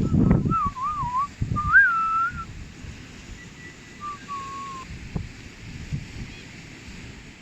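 A person whistling: a few quick, wavering notes, then after a pause a short held note that slides down slightly. A faint low background of wind runs underneath.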